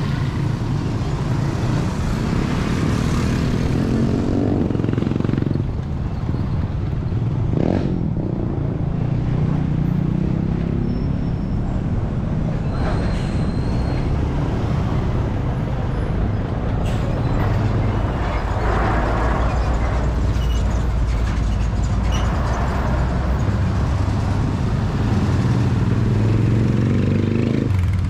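Motor vehicle engines running over a steady low rumble, rising and falling in pitch several times as they rev or pass.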